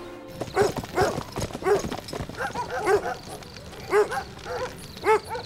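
A dog barking repeatedly, about a dozen short barks starting about half a second in.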